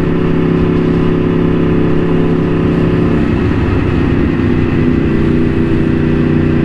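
Loud motorcycle engine and exhaust running at a steady, even note while the bike is ridden.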